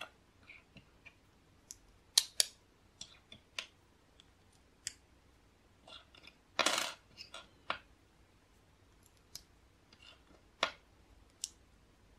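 Small plastic LEGO pieces clicking and clattering as they are picked from a pile on a table and handled: irregular sharp clicks, with a short rattle of pieces about halfway through.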